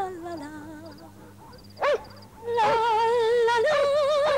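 A dog howling: a short yelp, then, from about two and a half seconds in, a long wavering howl that steps up slightly in pitch near the end. Crickets chirp in short three-pulse trills throughout.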